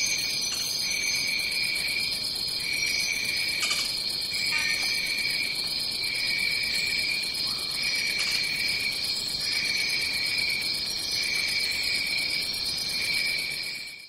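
Rainforest ambience: a dense, steady chorus of high-pitched insect calls, with a lower insect trill that pulses on and off every second or two. It stops abruptly at the very end.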